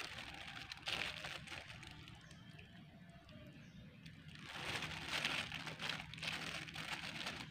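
Plastic bag crinkling and rustling around the hand, with a metal spoon scooping and pressing grated coconut, as beef satay skewers are coated in spiced coconut. It grows louder about halfway through.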